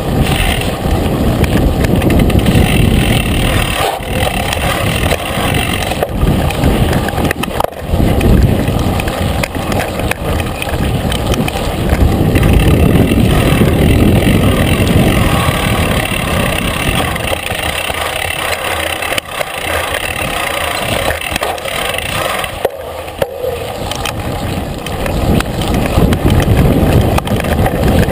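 Mountain bike rolling and rattling over a rough dirt trail, heard through a handlebar-mounted camera with wind buffeting the microphone; the noise eases for a few seconds past the middle and builds again near the end.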